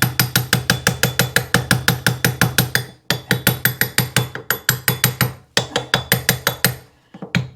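Soft lead mallet tapping rapidly on a Delta single-handle faucet's handle, about seven sharp knocks a second in three runs with short pauses, to break the handle loose from its corroded stem after a penetrating-oil soak; the knocking stops near the end.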